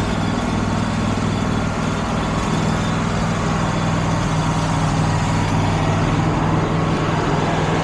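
Engine running steadily with an even low hum.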